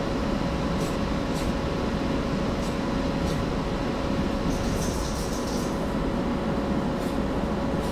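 A hobby spray booth's exhaust fan running with a steady whooshing hum and a constant tone.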